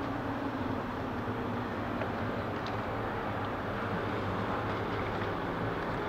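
Steady outdoor background noise: a low rumble and hiss with a faint hum underneath and no distinct event.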